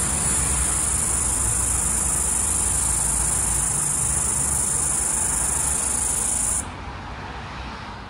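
Floury baker cicada (Aleeta curvicosta) calling: a steady, high buzz that cuts off abruptly about six and a half seconds in.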